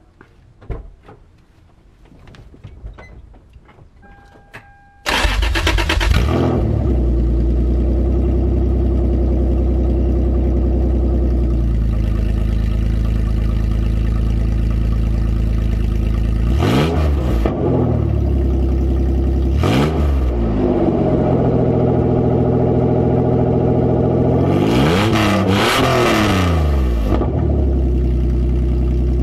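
A few faint clicks, then about five seconds in a 1999 Toyota Tacoma's 3.4L V6 starts and idles loudly with its exhaust open where the catalytic converter was cut out, so it vents almost straight from the header. It is revved briefly twice, then once more for longer near the end.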